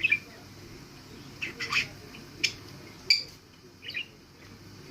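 Pet budgerigar giving short, sharp calls, about five of them at irregular intervals.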